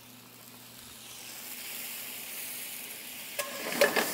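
Wine-and-stock pan sauce sizzling in a skillet as it comes to a boil, the hiss growing louder after about a second. Near the end a utensil scrapes and clinks against the pan as the sauce is stirred.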